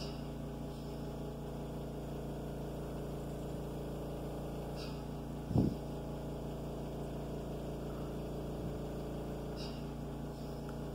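Steady electrical mains hum with a buzzy stack of overtones, broken once by a short knock about five and a half seconds in.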